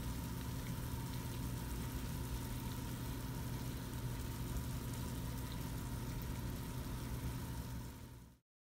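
Steady low hum with a faint even hiss, unchanging, fading out near the end.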